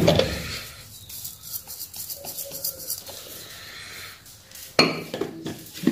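Stainless-steel mixer-grinder jar being handled between grinds: a knock at the start, faint rattling, then a louder metal clatter about five seconds in. The grinder motor is not running.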